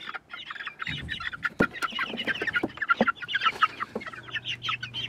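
A flock of young Easter Egger chickens peeping and clucking all the time, many short high calls overlapping, with two sharp knocks in the first half. The birds are newly moved out of a brooder into a coop.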